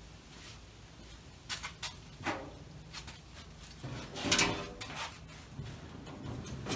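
A few light clicks and knocks, then a louder scrape lasting about half a second, about four seconds in.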